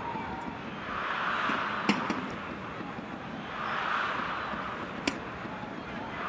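Badminton rackets striking the shuttlecock: a few sharp cracks, the loudest about two seconds in and about five seconds in. Beneath them, arena crowd noise rises and falls.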